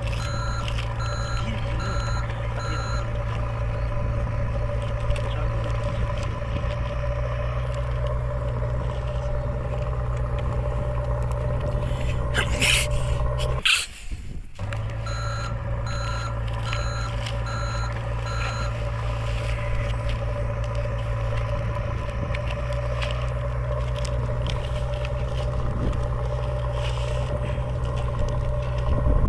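Heavy construction vehicle's diesel engine running steadily, with a reversing alarm beeping about twice a second for the first few seconds and again for a few seconds midway. The sound cuts out briefly about 14 s in and then starts over the same way, as a looped sound effect.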